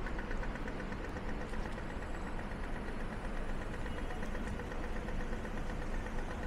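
Pedestrian crossing signal ticking rapidly for the walk phase, fading after about three seconds, over a steady low rumble of traffic.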